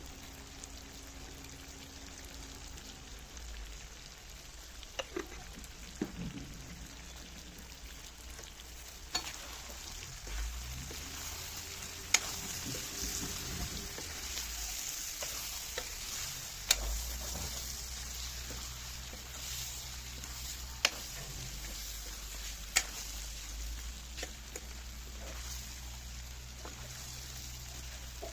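Chicken curry sizzling in an oiled pan while a spoon stirs it, with a sharp clink of the spoon against the pan every few seconds.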